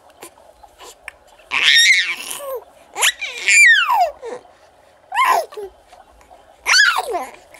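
A baby squealing and laughing happily in four high-pitched bouts, each sliding down in pitch.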